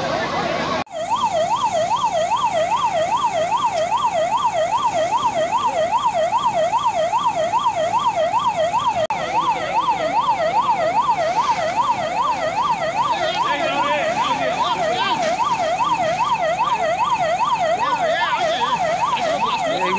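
Emergency vehicle siren in a fast yelp, rising and falling about two and a half times a second, starting about a second in.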